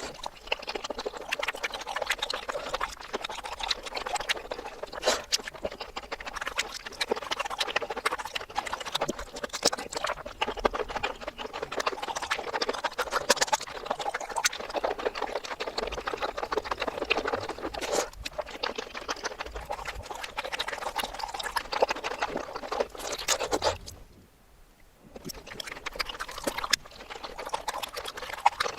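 Close-miked mukbang eating sounds played backwards: a dense run of wet chewing, smacking and small clicks from seafood and eggs being eaten. There is a second-long break near the end.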